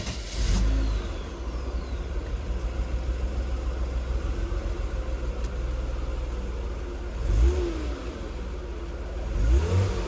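Mercedes-Benz 300E straight-six just after catching: a short flare of revs, then a steady idle, then two brief blips of the throttle near the end. It is a clean, quick start after the fuel-injection mixture (duty cycle) was leaned out from running rich, which the owner takes as the hard-starting problem cured.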